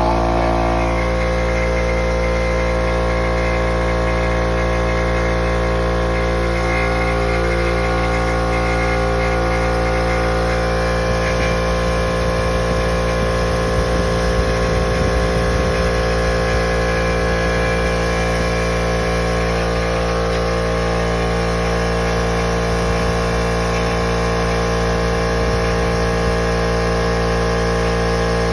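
Husky oil-free air compressor running, a steady, loud, unbroken motor drone.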